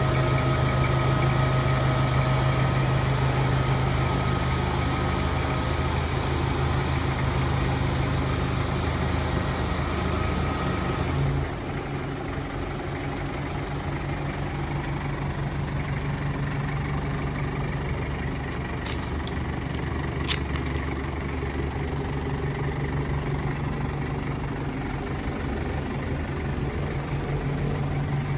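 A vehicle engine idling with a steady low hum. About eleven seconds in the sound changes and drops slightly in level, and three light clicks come about two-thirds of the way through.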